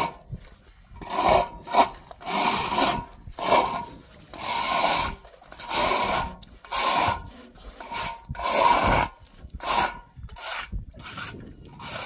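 Handsaw cutting through wood: rhythmic rasping back-and-forth strokes, roughly one a second.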